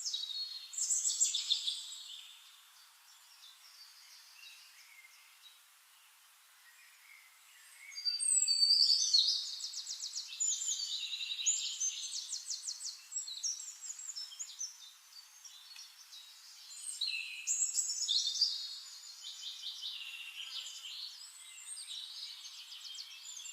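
Songbirds singing: bouts of fast, high trills and chirps, loudest about a second in, again from about a third of the way through, and near three-quarters, with quieter chirping between.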